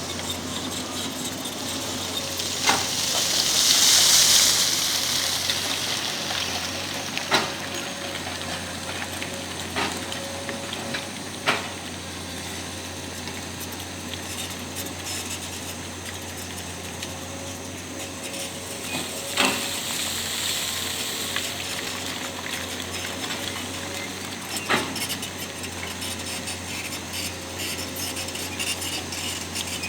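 Heavy construction machine's diesel engine running steadily, with a loud hiss swelling about four seconds in and a sharp knock every few seconds.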